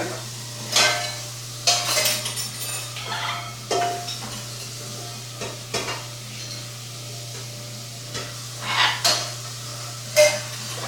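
Orange-winged Amazon parrots making short, harsh, scratchy noises, a handful of brief bursts spread through, over a steady low hum.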